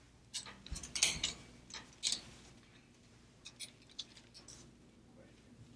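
Plastic clothes hangers clicking and knocking against a wire gridwall as garments are lifted off it. There is a cluster of light clicks in the first two seconds, then a few scattered ones.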